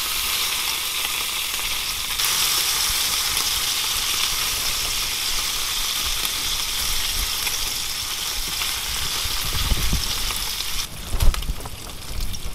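Bacon sizzling and spitting in a hot skillet, a steady hiss of frying fat, with tongs turning the strips. The sizzle drops back sharply about eleven seconds in, and a few low thumps come just before that.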